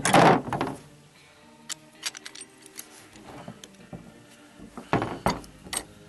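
Hand tools and brass fittings being handled on a plastic tabletop: a clatter at the start, scattered small clicks and clinks, then a louder cluster of rattling clinks near the end as pliers, a screwdriver and a SharkBite disconnect clip are picked up and fitted together.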